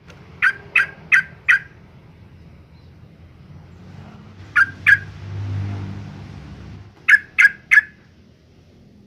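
Yellow-vented bulbul calling in quick runs of short, sharp notes: four, then two, then three. A low rumble swells briefly between the second and third runs.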